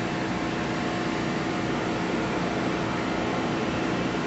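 Steady, even background noise with a faint constant hum underneath and no distinct events.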